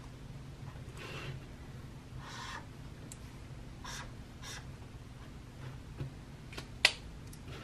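Faint scratchy swipes of a Mildliner highlighter tip across lined notebook paper, several separate strokes, then a few sharp clicks near the end.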